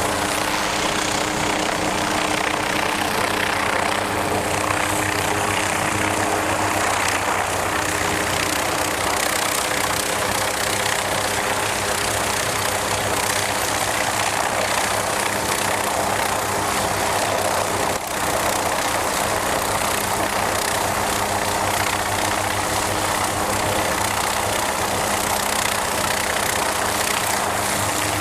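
MQ-8B Fire Scout unmanned helicopter's turbine engine and rotor running steadily: a loud, even mechanical noise with a steady low hum. A few of the hum tones drop out about seven seconds in.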